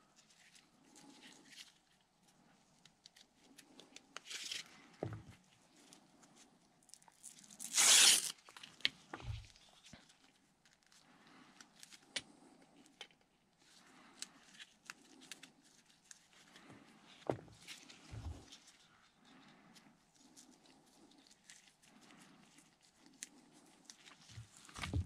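Velcro strap being handled and pulled apart, with a short rip about eight seconds in and a softer one around four seconds. Between them, quiet rustling and small clicks from handling the strap and a screw.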